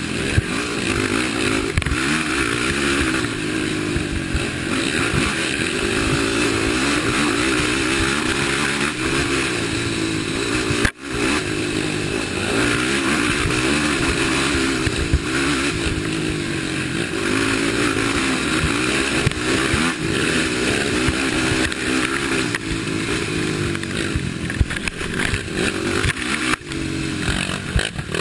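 Race quad (ATV) engine running hard, its pitch rising and falling with the throttle and gear changes over a rough trail, heard from the rider's helmet camera. The sound drops out briefly about eleven seconds in.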